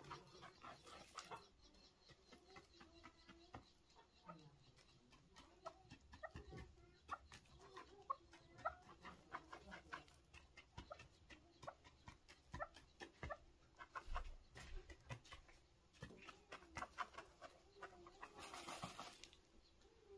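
Faint sounds of a chukar partridge dust-bathing in dry gravelly soil: many small clicks of grit and pebbles being scratched and shifted, with soft low clucking. A short hiss comes near the end.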